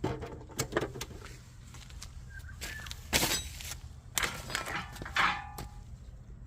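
A series of sharp knocks and clanks, loudest about three seconds in and again about five seconds in, a few of them leaving a brief metallic ring.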